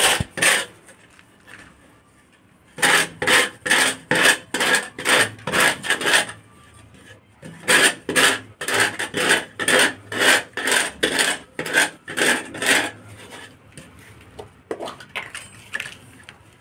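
Rasping back-and-forth strokes of a PVC pipe end being rubbed against rough concrete, about three strokes a second, in two runs with a pause between, then a few fainter strokes near the end.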